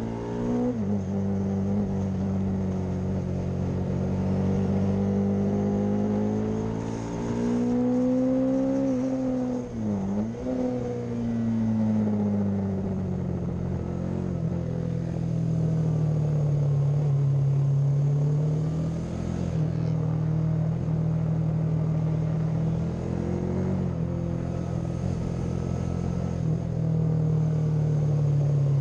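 A classic racing motorcycle engine of up to 500cc, heard onboard, running hard around a circuit. Its pitch climbs and falls with throttle and gear changes, with a sharp drop and recovery about ten seconds in.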